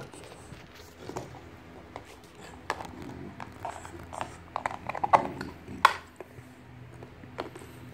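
Clear plastic food container clicking and knocking as a French bulldog bites and pushes it about: a run of sharp taps, thickest and loudest from about three to six seconds in.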